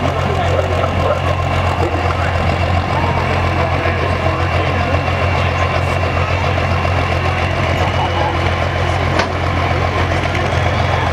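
Pickup truck engine idling steadily at the start line of a truck pull, a low even drone with a thin steady high whine over it.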